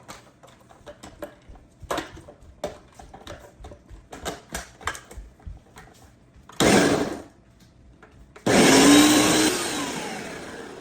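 Light clicks and knocks, then a blender gives one short burst at about six and a half seconds and from about eight and a half seconds runs continuously, gradually getting quieter, blending onion, garlic, ginger, herbs and oil into a seasoning paste.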